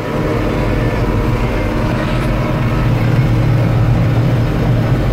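John Deere 4450 tractor's six-cylinder turbo diesel engine running steadily while the tractor tows a round baler down the road.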